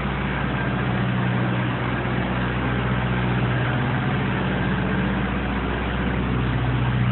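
A large engine idling steadily with an even low hum.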